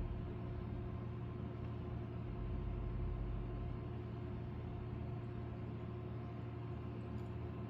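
Room air conditioner running: a steady mechanical hum with a low rumble under it.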